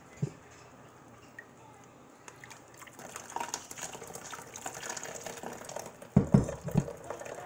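Water poured from a blender jar into a fine-mesh strainer full of blended strawberry pulp, splashing and trickling through into the pot of juice below, starting about two seconds in. A few loud, low thumps come near the end.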